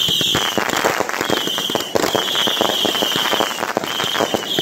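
Many consumer firework cakes firing together: dense crackling and popping, cut through again and again by long high-pitched whistles.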